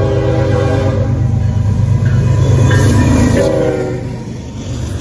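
Norfolk Southern freight train's lead diesel locomotives sounding their horn, which stops about a second in, over a loud engine rumble as the locomotives pass close; a second short horn blast comes about three and a half seconds in, after which the rumble eases.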